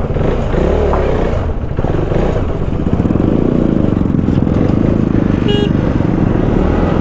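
KTM 390 Duke's single-cylinder engine running close to the microphone, a steady, loud rumble that grows a little fuller about three seconds in.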